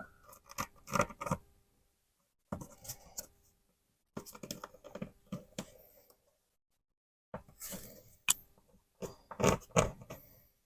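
Tracing the outline of a drywall patch's paper flaps onto the wall: faint, short scratching strokes in several bursts with pauses between, and a sharp click about eight seconds in.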